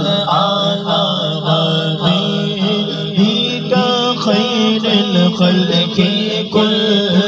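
Men's voices chanting a naat: a lead voice sings a wavering melodic line over a steady low drone held beneath it.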